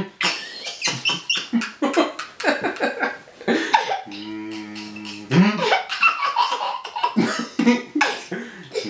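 Toddler laughing in short breathy bursts, with a held humming note for about a second near the middle.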